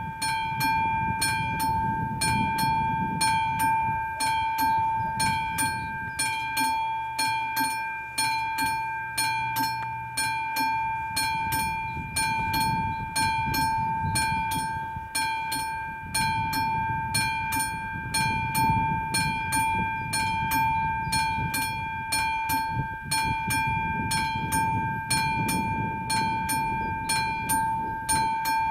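Classic mechanical bell of a Czech AŽD 71 level-crossing warning signal ringing, struck evenly about three times a second with its tone ringing on between strokes. It is the warning that the crossing is closed for an approaching train.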